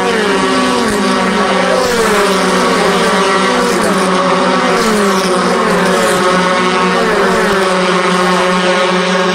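A pack of USF2000 open-wheel race cars at speed, engine notes dropping in pitch one after another about once a second as the cars go past, over a steady engine drone.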